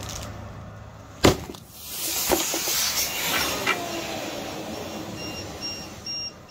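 Overcharged, puffed 3S lithium-polymer battery pack failing in thermal runaway: a sharp bang about a second in, then a loud venting whoosh with a few pops that fades over a couple of seconds. Near the end an electronic beeper starts, short beeps two or three a second, getting louder.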